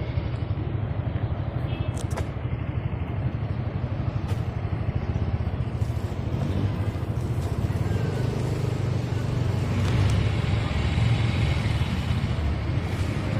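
Steady low rumble of a car's engine and road noise heard from inside the vehicle, swelling a little about ten seconds in.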